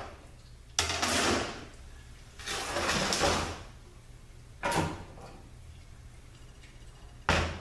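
Metal transmission parts being handled during a teardown: two scraping, sliding sounds of about a second each, then two sharp clunks, one about halfway through and one near the end.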